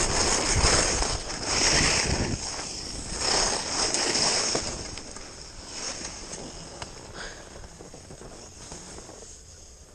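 Skis sliding and scraping over hard-packed snow, loud for the first four or five seconds and then fading as the skier slows down.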